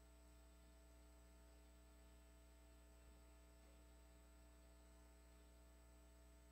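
Near silence: a faint, steady electrical hum, with one tiny click about three seconds in.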